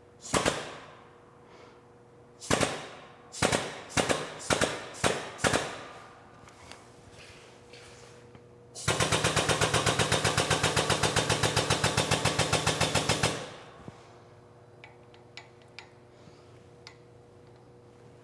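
Shop press working as a T56 synchronizer is pressed onto the transmission main shaft: a string of sharp clacks, then a rapid, even clatter at about six beats a second for some four seconds that stops abruptly.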